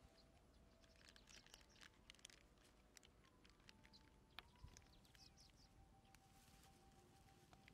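Near silence: faint outdoor quiet with a few faint high chirps and scattered soft clicks.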